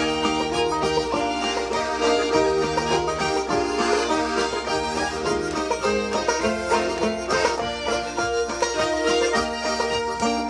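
Instrumental passage of a French-Canadian folk song, with no singing.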